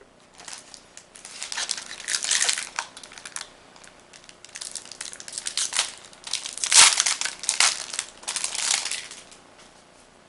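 Foil booster pack wrapper crinkling and tearing as it is opened by hand, in two long stretches with one sharp, loud crackle about two-thirds of the way through.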